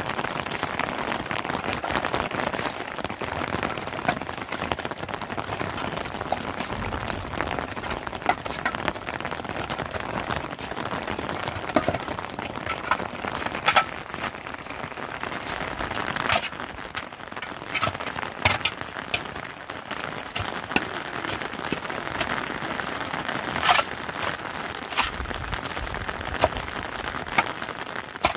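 Rain pattering steadily on a plastic sheet, with irregular sharp knocks and scrapes of a shovel digging into wet mud and stones.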